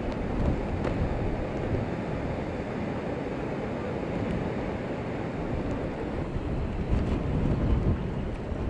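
Rough storm surf crashing and hissing steadily, with strong wind rumbling on the microphone, a little louder near the end.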